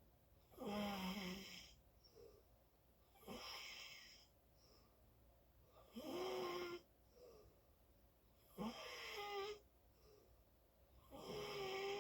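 Loud snoring in a steady rhythm: about five snores, each lasting roughly a second with a held tone in it, one every two and a half to three seconds.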